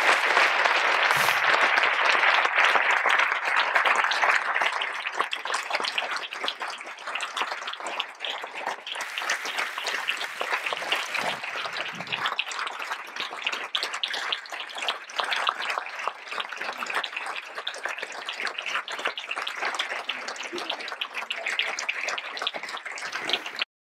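Audience applauding, loudest in the first few seconds and then settling into steadier clapping, which cuts off suddenly near the end.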